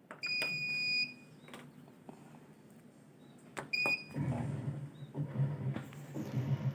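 Polytron washing machine's control panel beeping twice as its buttons are pressed, a longer beep then a short one, with a few clicks. About four seconds in, a low hum starts as the machine begins running.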